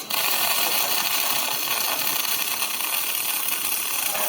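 Robotic arc welding: the arc strikes abruptly at the start and then burns with a loud, steady hiss.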